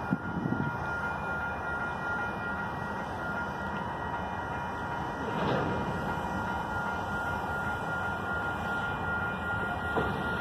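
Railroad crossing warning bell ringing as one steady high tone over the low rumble of a slow freight train approaching the crossing. Near the end the train's tank cars begin rolling across the road.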